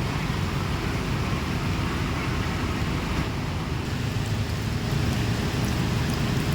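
Strong wind rushing and buffeting the microphone, a steady low rumble with a hiss above it.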